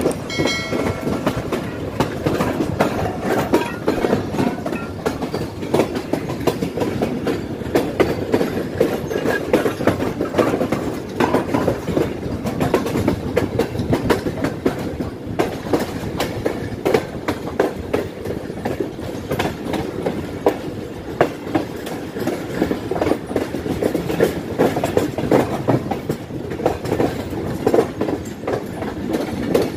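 Moving passenger train heard from a coach doorway: steady wheel-on-rail rumble with a dense, uneven clatter of clicks as the wheels run over rail joints and junction points. A brief high tone sounds near the start.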